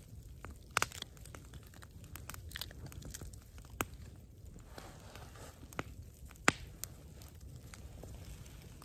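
Hands peeling and tearing cooked food at close range: soft tearing and crinkling with a few sharp snaps scattered through it, over a low steady rumble.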